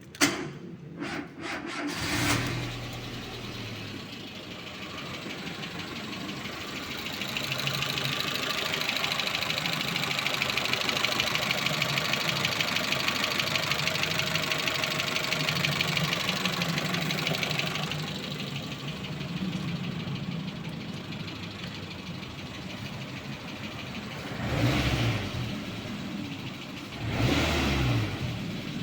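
Renault Twingo 2's D7F 1.2-litre eight-valve four-cylinder petrol engine starting about two seconds in and then running, with a fast, even ticking over the engine note. It is revved briefly twice near the end.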